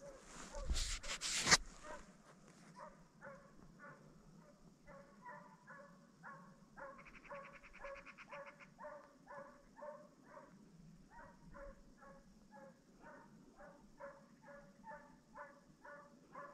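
Russian hound baying faintly and steadily, about two to three barks a second, giving voice in pursuit of a hare. A brief loud rustle of handling or wind on the microphone comes near the start.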